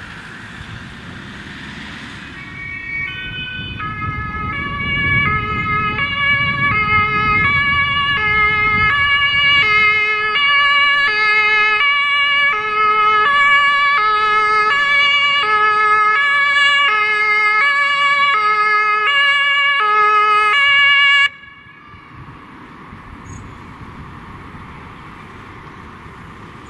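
German fire service two-tone siren (Martinshorn) on an approaching vehicle, growing louder over the first few seconds and then alternating steadily between a high and a low note. It cuts off suddenly about three-quarters of the way through, leaving the rolling noise of traffic.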